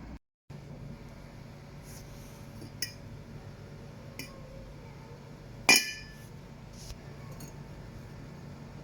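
Light clinks of hard objects, with one loud ringing clink a little past halfway, over a steady low hum.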